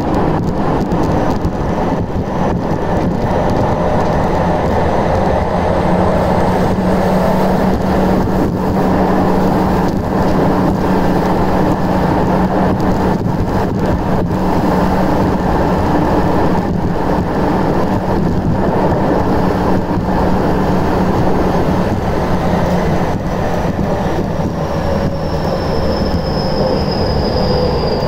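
Tokyu 5080 series subway train running through a tunnel, heard from inside the car: a steady rumble of wheels on rail with a low hum. Near the end a high whine from the inverter and traction motors falls in pitch as the train begins to slow.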